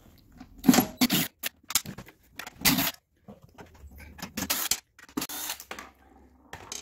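A Craftsman cordless impact driver working in short bursts, backing out the starter recoil's 3/8 bolts, among sharp metallic clicks and rattles. The loudest bursts come in the first three seconds, then only scattered lighter clicks.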